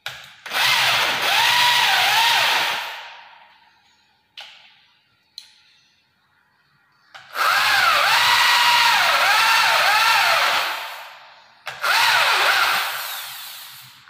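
Handheld corded electric drill boring into a wooden plank in three runs, its motor whine dipping and recovering in pitch as the bit bites into the wood. Two brief blips come between the first and second runs.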